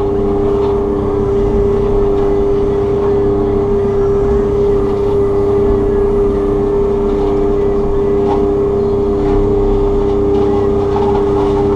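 Takeuchi TB290 excavator running an FAE mulching head: a steady machine drone with an even, two-note whine that holds without change.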